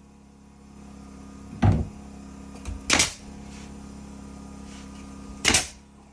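Three loud knocks, like blows on wood, over a low steady hum that starts about a second in and stops near the end.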